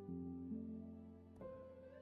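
Quiet instrumental background music: soft held notes that change every half second or so.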